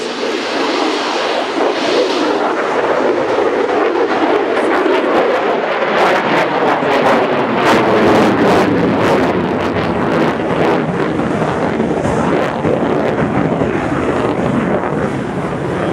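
Lockheed Martin F-35 jet fighter's single turbofan engine passing overhead at display power, a loud steady jet noise. Its pitch falls partway through, and it crackles as it grows loudest in the middle.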